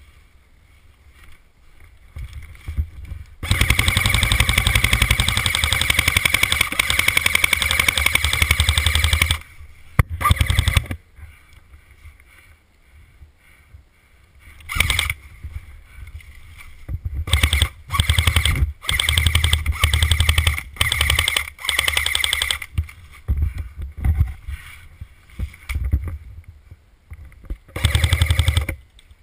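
ARES Stoner 96 electric airsoft light machine gun firing full-auto: one long burst of about six seconds, then a string of shorter bursts with pauses between them.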